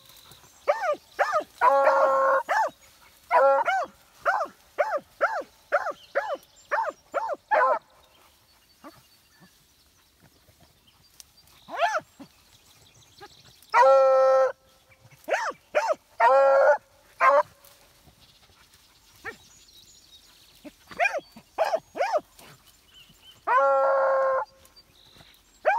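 Two hounds baying while running: a quick string of short chop barks, a lull, then long drawn-out bawls about halfway through and near the end, with more short barks between.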